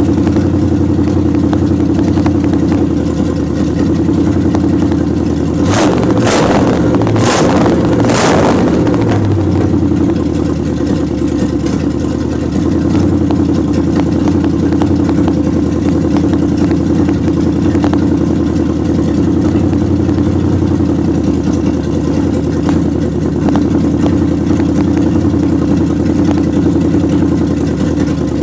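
1929 Chrysler engine idling steadily as it warms up. Four sharp cracks come close together about six to eight seconds in.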